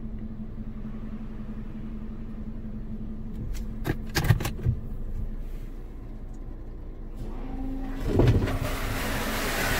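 Inside a car in an Autec soft-cloth automatic car wash: a steady machine hum with a few clunks about four seconds in. Near the end the wash starts up, with a thump and a rising hiss of spray and cloth brushes working against the car.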